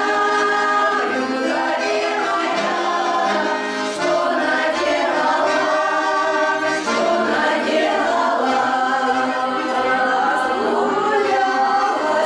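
Russian folk ensemble singing in chorus, several voices together in sustained sung lines.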